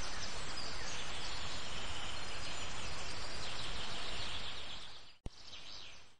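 Steady outdoor background noise with faint high bird chirps. It fades out about five seconds in, with a single sharp click as it drops away.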